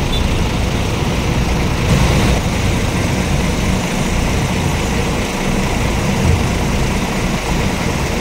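Large diesel coach engine running as a bus moves across the lot: a steady low engine sound with no sharp events.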